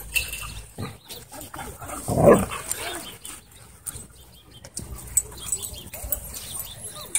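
Dogs play-fighting, with one loud, low dog vocalization lasting about half a second, about two seconds in. Quieter scuffling and scattered clicks fill the rest.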